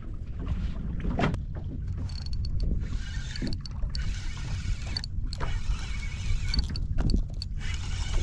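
Wind buffeting the microphone and water lapping against the hull of a small fishing boat, a steady low rumble broken by a few light clicks and knocks.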